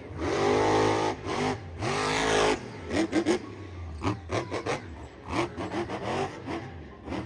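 Monster truck's supercharged V8 engine revving hard twice, each rev rising in pitch, then a string of shorter throttle blips.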